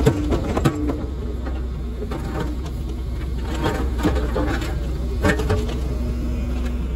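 Sumitomo HA45W asphalt finisher running: a steady low engine drone with a buzzing hum and a few sharp knocks and clanks scattered through it.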